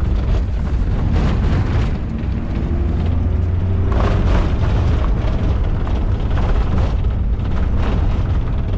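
Minivan driving on a dirt track, heard from inside the cabin: a steady low rumble of engine and tyres with occasional knocks and rattles, and a faint whine rising over the first few seconds.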